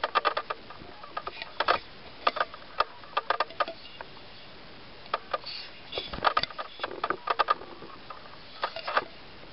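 Hard plastic toy door piece handled and turned over close to the microphone: irregular clusters of small clicks and taps.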